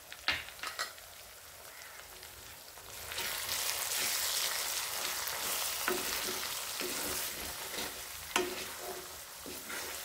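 Tomato-onion masala frying in a kadhai as a wooden spatula stirs the freshly added spice powders through it. It starts quietly with a few light clicks, then the sizzling grows louder about three seconds in. A couple of sharp knocks come through over the stirring.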